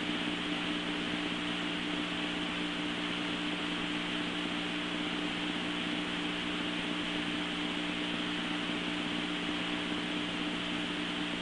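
Steady static hiss with a low hum on a fire-dispatch radio recording, in a gap between transmissions.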